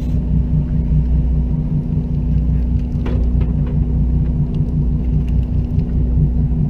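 A boat's engine running steadily, a low rumble with a constant hum, with a brief sharp knock about three seconds in.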